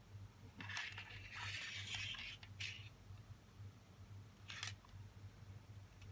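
Faint handling sounds, a second or two of scratchy rustling and clicks followed by a single click a little later, over a steady low hum.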